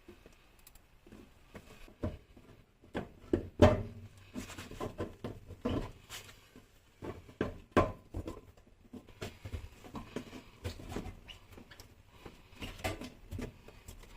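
Irregular knocks, clunks and scraping as a fuel pump assembly is worked loose by hand and drawn out through the fuel tank's access opening, with two or three louder thuds.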